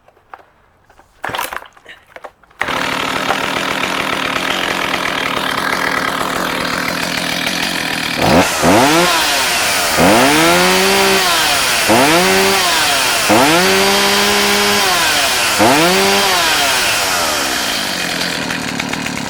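Stihl 029 Super two-stroke chainsaw pull-started: a few short noises, then the engine catches about two and a half seconds in and idles steadily. From about eight seconds in it is revved up and let back down five times, held at high revs on two of them, before returning to idle. The saw idles and runs well.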